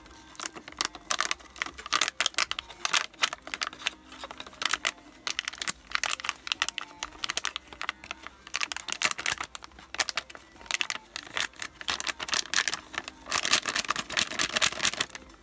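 Gravelly paydirt rattling out of a plastic bag onto a plastic classifier over a gold pan, in bursts of dense clicking as the bag is shaken, with the bag crinkling.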